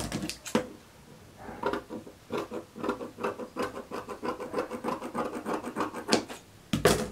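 Fabric scissors cutting through thin dress fabric, a quick series of crisp snips as the blades close along a curved line, with a louder knock near the end.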